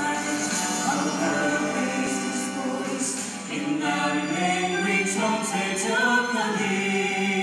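A mixed vocal group of five singing a gospel song in close harmony, with long held notes.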